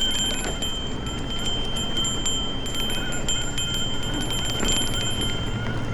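Electric mountain bike riding over a dirt trail: rapid clicking and rattling from the chain and bike parts over the bumps, over a low rumble of tyres and wind, with a steady faint whine from the Bosch drive motor.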